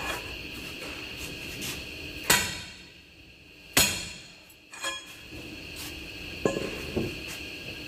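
Metal clangs from a steel cheater pipe and lug wrench on a truck's wheel nuts during final tightening: two loud ringing strikes about a second and a half apart, then a few lighter knocks.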